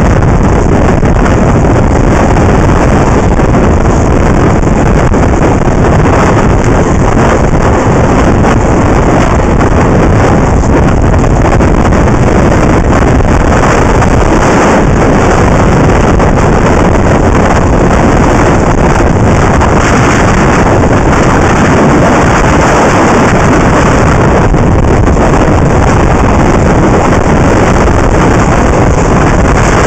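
Steady, loud wind rushing over the microphone of a camera carried by an inline skater moving at speed on an asphalt track.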